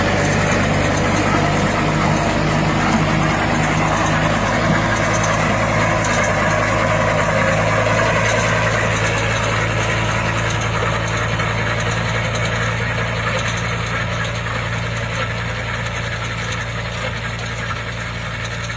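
A farm machine's engine running steadily, growing a little quieter in the second half.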